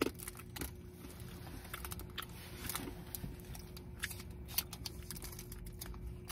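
Faint scattered crinkles and clicks of a chocolate bar's foil wrapper being handled, over a low steady hum.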